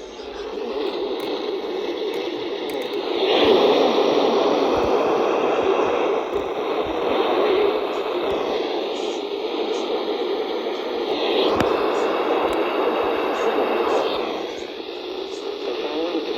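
Radio static from a receiver tuned to a station with poor reception: a loud hiss that swells about three seconds in and rises and falls through the rest.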